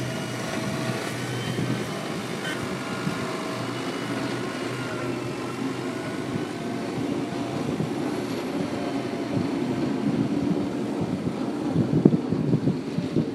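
PistenBully snowcat's diesel engine running steadily as the machine drives over the snow pulling its grooming tiller, with a faint wavering whine over the engine noise.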